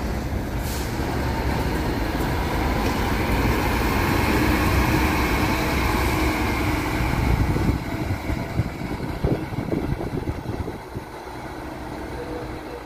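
Scania K360IB coach's rear-mounted diesel engine pulling away and passing close by, its engine and tyre noise building for about six seconds, then fading as it drives off.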